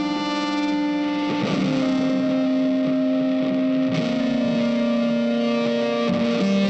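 Background music: sustained held notes that change pitch every couple of seconds.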